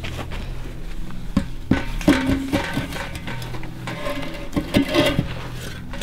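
Soft background music with plucked guitar notes, and a few sharp knocks and clanks over it.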